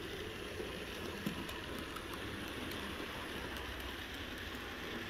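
Bachmann OO gauge model of an LMS 3F locomotive running along the layout track with its coaches: a steady rushing rumble of wheels and motor, with a few faint clicks.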